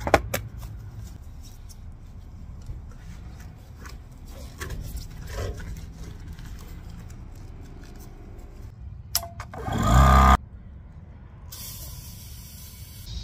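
Clicks and knocks of a cap and a rubber Cherne test-ball plug being handled in a cast iron wye cleanout. About ten seconds in comes a loud, short rush of compressed air, and near the end a steady high hiss as air from a gauged inflator chuck fills the test ball.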